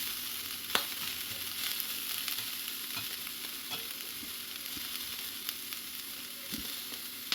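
Onions and chopped ham frying in a Lodge cast iron skillet: a steady sizzle, with a few sharp clicks, the clearest about a second in and another near the end.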